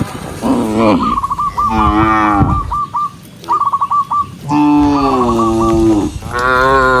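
Cattle mooing: four moos from the herd, the longest lasting about a second and a half, with quick runs of short high chirps in between.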